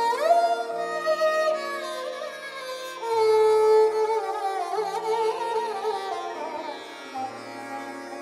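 Sarangi playing a slow Hindustani melody with sliding, ornamented notes over a low drone.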